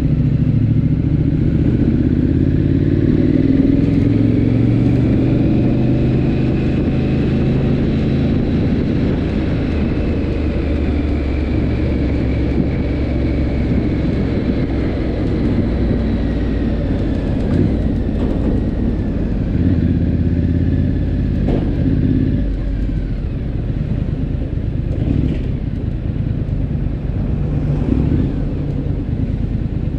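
Triumph Scrambler 900's parallel-twin engine pulling away under acceleration, its pitch rising over the first few seconds, then running steadily at cruising speed.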